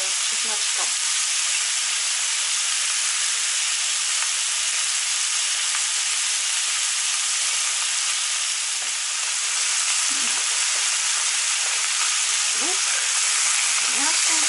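Diced pork and chopped onion frying in oil in two frying pans: a steady sizzling hiss.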